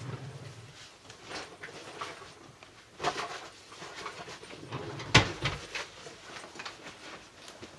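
Hurried packing of a backpack: rustling, clatter of objects and scattered knocks as things are grabbed and stuffed in, with one loud thump about five seconds in.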